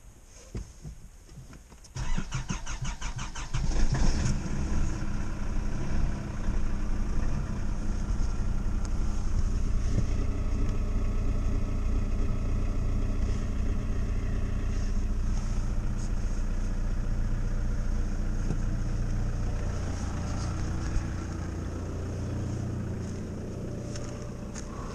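2003 Nissan Terrano 3.0 four-cylinder turbodiesel cold-started at −4 °C after the glow plugs were preheated: about two seconds in the starter cranks rapidly for about two seconds, the engine catches and flares up, then settles into a steady idle, heard from inside the cab.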